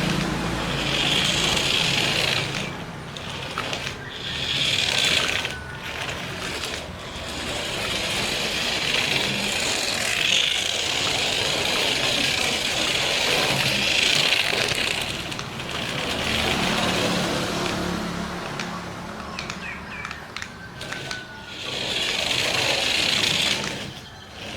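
Toy RC car's small electric motor and tyres running over rough ground, the noise swelling and dropping in several runs as it drives.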